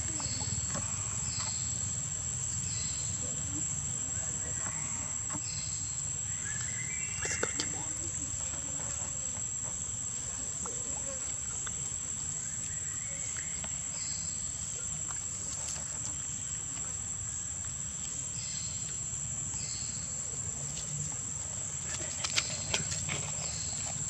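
Outdoor insect chorus: a steady high-pitched drone, with short chirps repeating at uneven intervals and a few sharp clicks, once early and a cluster near the end.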